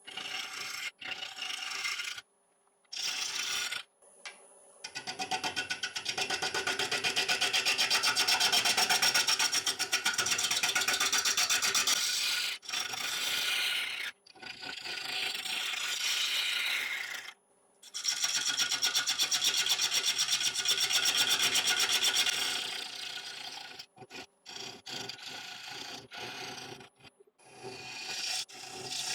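Bowl gouge cutting a dry ash blank spinning on a wood lathe, in several passes that start and stop. Each pass has a fast, even pulse, an interrupted cut on an out-of-round, cracked blank where the gouge bites on one side and meets air on the other.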